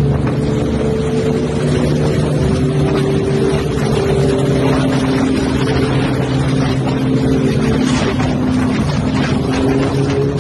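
Motorcycle engine running steadily at cruising speed, its pitch drifting slightly, with wind noise on the microphone.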